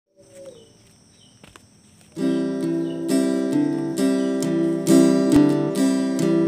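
Acoustic guitar strumming chords in a steady rhythm, coming in suddenly about two seconds in after a faint, quiet opening.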